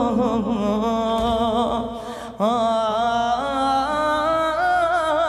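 Male radood chanting a Shia elegy in long, drawn-out notes whose pitch wavers and bends. The line fades a little after two seconds, and a new held phrase starts sharply at about two and a half seconds.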